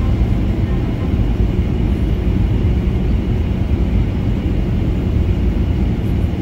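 Boeing 737-800 jet noise: a steady low rumble with no rise or fall.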